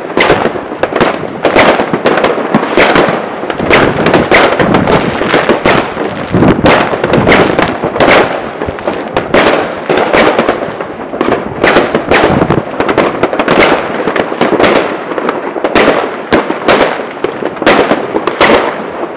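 Fireworks and firecrackers going off all around in a dense, loud barrage: several sharp bangs a second over near-continuous crackling.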